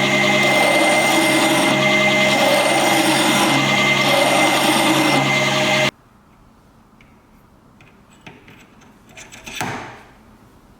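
Electric power tool running steadily under load, a motor hum with a dense grinding noise, cutting off abruptly about six seconds in. After that only a few faint clicks and a short swish near the end.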